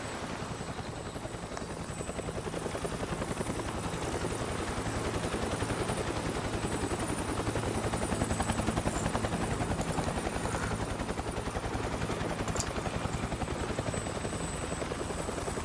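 Helicopter rotor chopping steadily in rapid, even beats, swelling a little midway.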